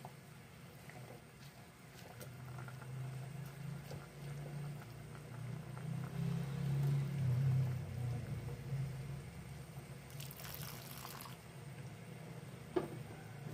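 Sinigang broth bubbling at the boil in a pot on the stove, a low watery bubbling that swells about halfway through. A short hiss comes about ten seconds in, and a light click near the end.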